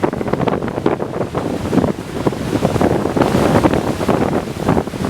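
Strong typhoon wind gusting across the microphone, over the rush of heavy surf.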